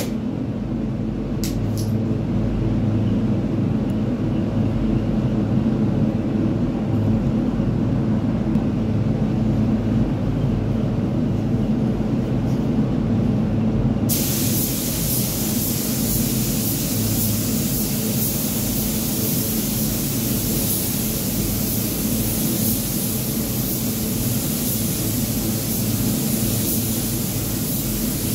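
Steady low rumble of a paint booth's air handling, then about halfway through a gravity-feed spray gun starts with a sudden, steady hiss of compressed air as paint is sprayed onto a car fender, continuing to the end.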